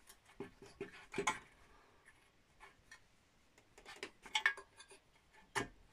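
Irregular light metallic clicks and knocks as a thrust washer and a billet aluminium suspension arm are worked into place by hand on a steel subframe, grouped about a second in, around four seconds in and once near the end.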